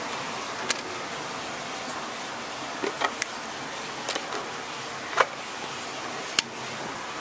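Metal terminal-box cover on a refrigeration compressor being lifted off and handled: a scattered string of about eight sharp clicks and knocks, the loudest a little after five seconds, over a steady hiss.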